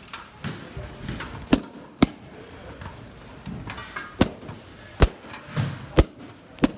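Metallic gold latex balloons bursting one after another: six sharp pops at irregular gaps of about half a second to two seconds, with rubber rustling between them.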